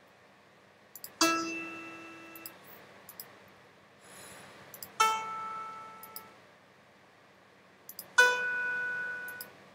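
Three single synthesized piano notes from an on-screen web piano keyboard, each starting sharply and ringing out for a second or more: about a second in, about halfway, and near the end. Short mouse clicks sound between the notes.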